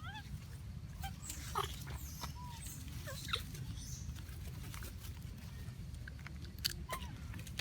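Baby monkey giving short, high squeaks and chirps, a few scattered calls that bend up and down in pitch, with sharp clicks in between over a steady low hum.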